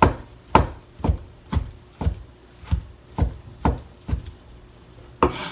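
Kitchen knife slicing rehydrated shiitake mushrooms on a cutting board, a steady run of about nine knocks of the blade on the board, roughly two a second, with a brief scraping sound near the end.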